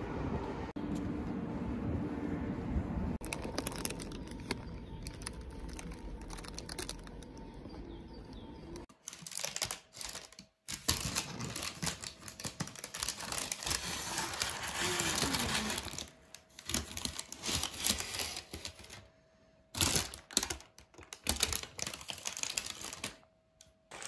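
Outdoor street background noise for about the first nine seconds. Then a paper bakery bag crinkles and rustles in irregular bursts as pastries are handled inside it.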